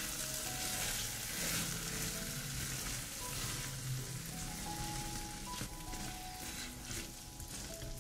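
Food sizzling in a hot frying pan, loudest in the first few seconds, with a few short scrapes of stirring later on. Soft background music plays underneath.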